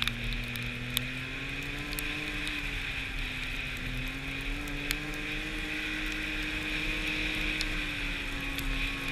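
Arctic Cat snowmobile running along a groomed trail, its engine note rising and falling gently with the throttle over a steady hiss, with a few sharp ticks.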